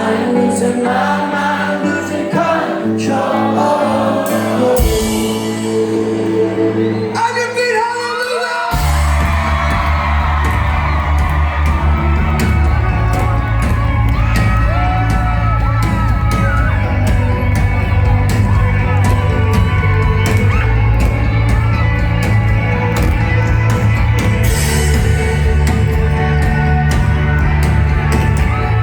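Live rock band playing with a lead vocal and crowd shouts and whoops. About nine seconds in, the full band comes in with heavy bass and a steady drum beat.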